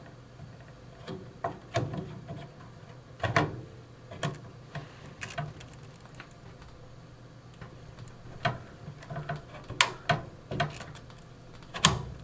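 Irregular clicks, taps and knocks of PC parts being handled and set into a computer case, over a steady low hum.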